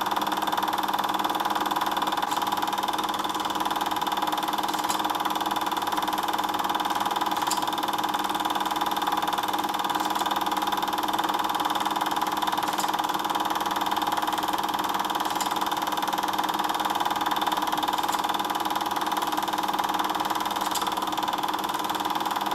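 Steady machine hum with several fixed pitches, and a faint tick about every two and a half seconds.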